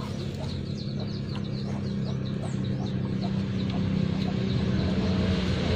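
Small birds chirping in quick short notes over a steady low engine hum that grows gradually louder toward the end.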